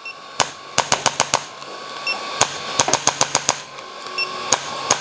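Chiropractic adjusting gun firing against the spine in quick bursts of sharp clicks, several strikes per burst, with short pauses between bursts. A faint steady high tone runs underneath.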